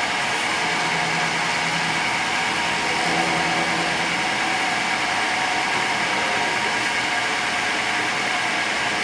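Milling machine running steadily: an even mechanical noise with a steady high whine.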